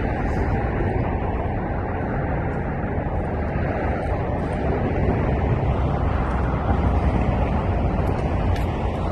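Steady low rumble of street traffic, unchanging throughout.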